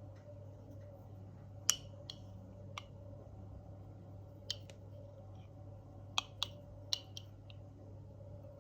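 About nine sharp, light clicks and taps at irregular intervals over a steady low hum. The loudest comes near the start, and a quick cluster of four falls in the second half.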